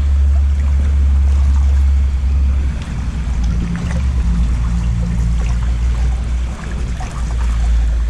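Wind buffeting the microphone as a heavy low rumble, over faint water noise as someone wades through a shallow river.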